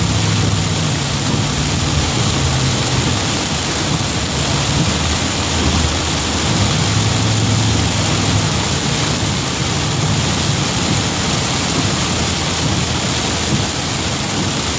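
Heavy rain falling on a moving car, heard from inside the cabin, with the hiss of tyres on the wet highway. A low hum from the car runs underneath, swelling and fading.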